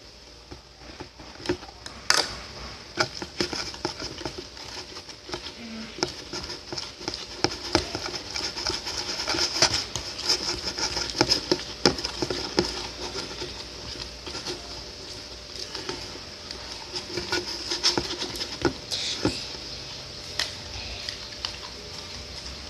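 Clear-glue slime being stirred in a container as more activator is mixed in to make it set: a stirring utensil scraping, with irregular wet clicks and taps and a sharper click about two seconds in.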